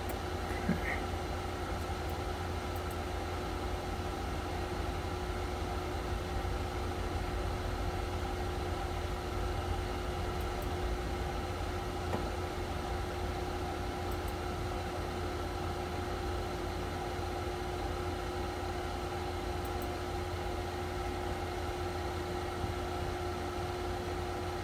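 Steady machine hum with a constant mid-pitched whine over a low rumble, and a faint click about a second in.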